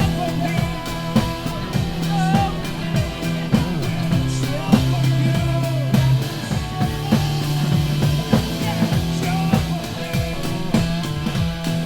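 Drum kit played along to a rock song, with steady bass notes and a singing voice under regular drum hits.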